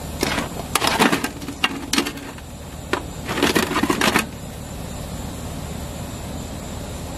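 Seasoning shaker shaken over halved lobster on a metal sheet pan, rattling in short rapid bursts. The longest burst comes about three and a half seconds in, with a few single clicks between bursts, over a steady low background noise.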